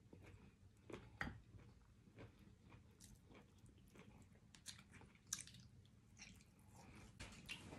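Quiet wet chewing and smacking while eating neck bones by hand, with sticky finger sounds as meat is picked off the bones. Short clicks run throughout, the sharpest about a second in and again past five seconds.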